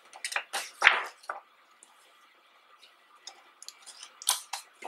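Glossy pages of a hardcover photo book being turned by hand: short paper rustles and crisp flicks, the loudest about a second in, then a cluster of them near the end.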